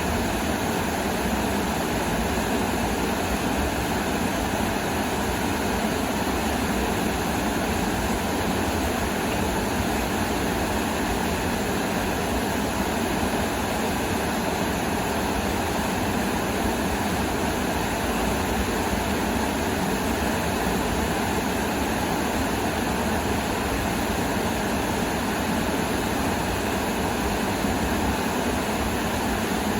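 Steady, unchanging rushing noise from an outdoor natural source, fullest in the low-middle range, with no distinct events.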